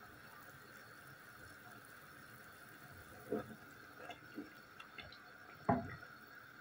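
A saucepan of water simmering on the heat: small irregular bubbling pops from about halfway through, the loudest a little before the end.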